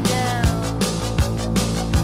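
Rock music with a steady drum beat, about one beat every three-quarters of a second.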